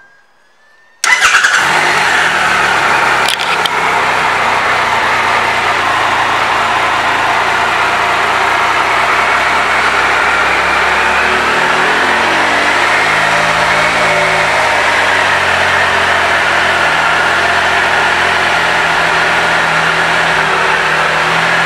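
Triumph Trophy SE's 1215 cc inline-three engine starting about a second in, then idling steadily.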